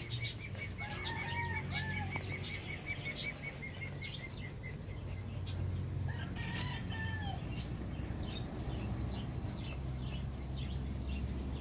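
A puppy digging in loose soil, its paws scratching at the dirt, with birds calling in the background: a fast trill in the first few seconds and a few short calls.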